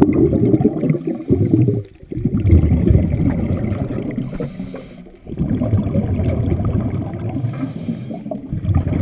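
Bubbles from a scuba regulator's exhaust, heard underwater as low bubbling in bursts of about three seconds with brief breaks between them: a diver breathing out through the regulator.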